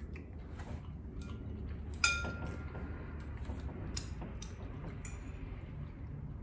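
Metal fork clinking against a ceramic pasta bowl, one loud ringing clink about two seconds in and a few lighter clicks later. Close-miked wet finger-licking and eating sounds run underneath.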